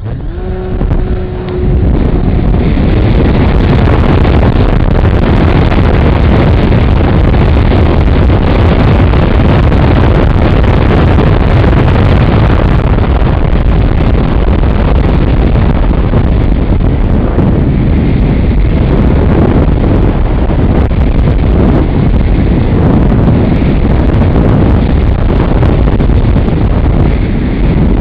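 Heavy wind buffeting on the microphone of a wing-mounted camera on an MPX Blizzard RC plane flying fast in strong wind: a loud, rushing roar. It builds over the first couple of seconds and then holds steady.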